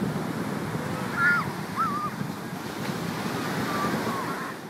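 Steady rushing noise of ocean surf and wind, with a few faint, high, wavering calls at about one and two seconds in and again near the end.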